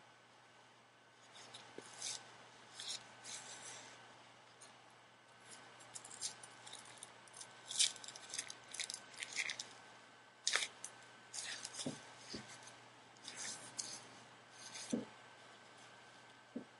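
Nike Diamond Elite Pro batting gloves being handled and pulled on: a string of short, scratchy rubbing and rustling sounds of the glove material, with a few soft thumps in the second half.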